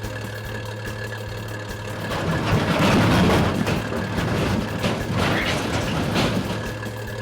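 Heavy vehicle engine idling with a steady low hum. About two seconds in, a louder rough surge of noise builds up, then fades away by near the end.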